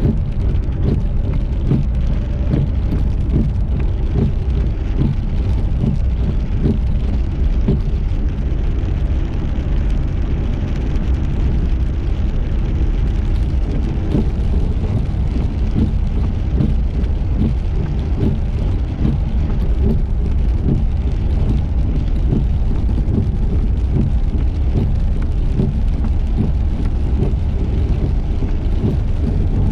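A steady low rumble of a car on the road, with rain and scattered ticks of drops running through it.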